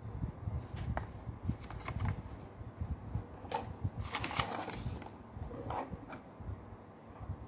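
A thin paper leaflet rustling and crinkling as it is handled and folded, with the densest crinkling about four seconds in, among scattered light taps and low handling bumps.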